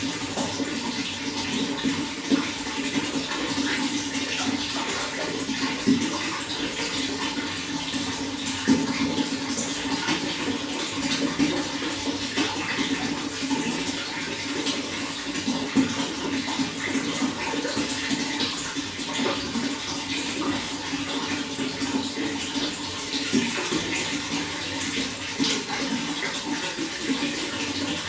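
Running water: a steady flow with many small splashes throughout.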